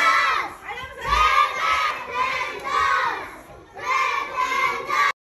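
A group of children shouting a chant together in short, rhythmic bursts. It cuts off suddenly just before the end.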